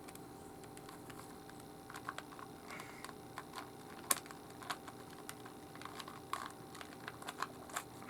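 Plastic Rubik's cube layers being twisted by hand: irregular sharp clicks and clacks starting about two seconds in, the loudest a little past the middle. The cube is stiff to turn, dry enough that it wants lubricating.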